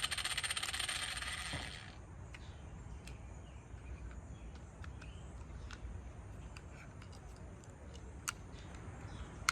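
A rushing noise that cuts off about two seconds in, then scattered light clicks and taps as the small pawls are fitted back into a Toro Timemaster's recoil starter pulley.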